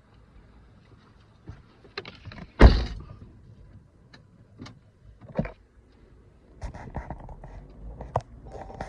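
Handling noises: a few sharp clicks and knocks, one loud heavy thunk about two and a half seconds in, then a stretch of rustling.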